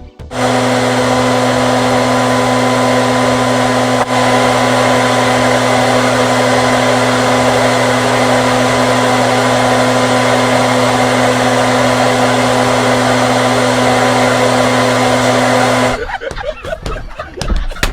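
Handheld hair dryer running steadily on one setting, with a loud motor whine and rushing air. It switches on about half a second in and cuts off abruptly near the end.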